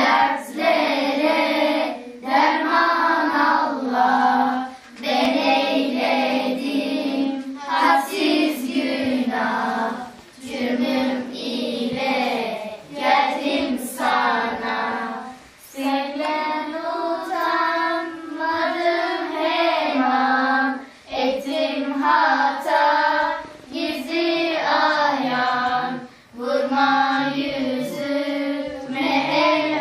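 A group of girls singing a Turkish Islamic hymn (ilahi) together, in short phrases with brief pauses between.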